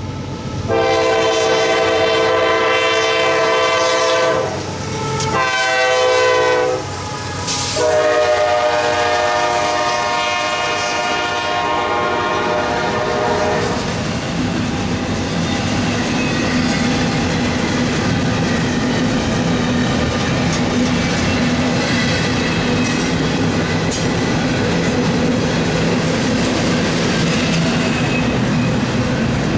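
A CSX freight locomotive sounds its air horn as a chord of several tones, in three blasts: a long one, a short one, then a longer one. Once the horn stops, the steady rumble and clickety-clack of double-stack intermodal well cars rolling along the rails carries on.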